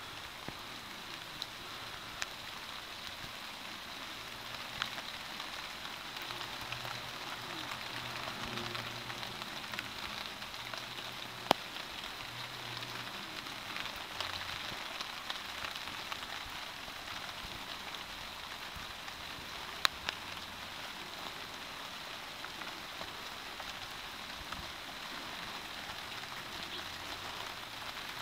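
Steady rain falling on a camouflage tarp shelter and wet ground, with scattered single drops tapping and two sharper taps, one about a third of the way through and one about two thirds.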